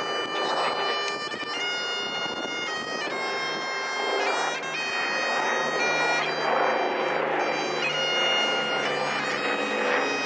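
Bagpipes playing a lament: a melody over a steady drone. The noise of the Lancasters' aircraft engines sits underneath and grows louder near the end.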